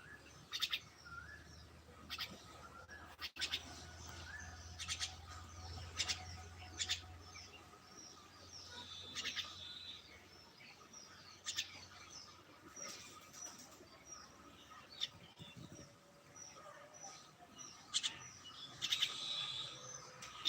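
Several small birds chirping and calling, with many short, sharp chirps and tweets overlapping, over a faint low hum.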